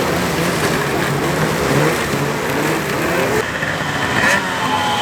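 Engine of a vehicle driving practice laps, revving up and easing off over and over, under a constant rush of wind and road noise.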